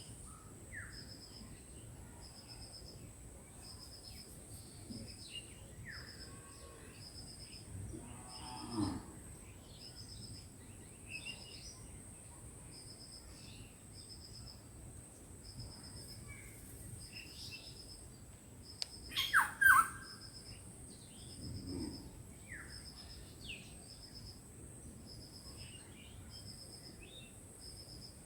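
Birds chirping and calling in a village, with a steady high insect drone and a short high chirp repeating about once a second. The loudest moment is a brief burst of bird calls about two-thirds of the way in. There are also two short low calls, one near a third of the way in and one later.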